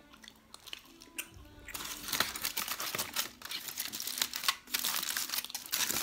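Aluminium foil crinkling as it is pulled back from a box of chicken wings, starting about two seconds in and continuing as a dense crackle.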